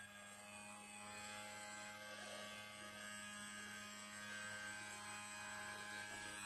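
Small rechargeable electric pump running with a steady, faint hum, drawing liquid up through a charcoal filter column.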